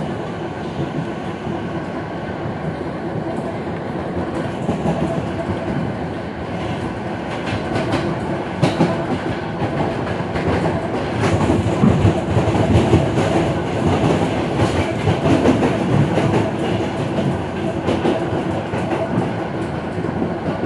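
Suburban electric train heard from inside the carriage: a steady rumble of wheels on rails with the clickety-clack of rail joints, louder for several seconds in the middle.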